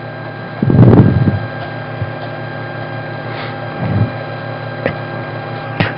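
Steady background hum made of several even tones under a low hiss, with a short low voice sound about a second in and a fainter one near four seconds.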